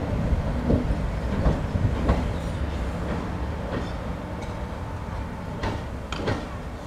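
InterCity 125 (HST) train moving away, a low rumble with its wheels clicking over rail joints, fading as it goes.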